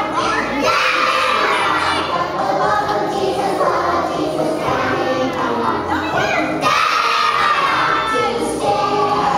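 A group of young children singing together loudly, many voices at once.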